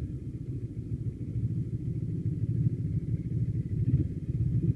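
CFMoto NK motorcycle engine running steadily at low revs as the bike rolls slowly in traffic and pulls up to a stop.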